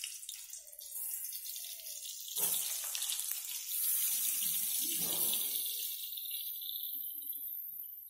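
Hot oil sizzling in a steel wok as whole boiled potatoes are dropped in, the sizzle jumping louder twice, about two and a half and four seconds in, as more potatoes go into the oil.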